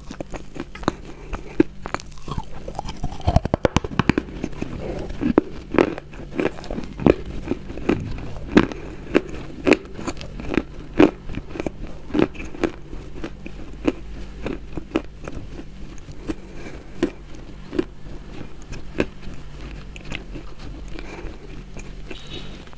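Close-miked chewing of crisp, crunchy food: sharp crunches, roughly one or two a second, with a quick flurry of them about three seconds in.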